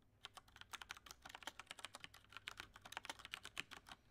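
Typing on a computer keyboard: a quick, uneven run of faint key clicks.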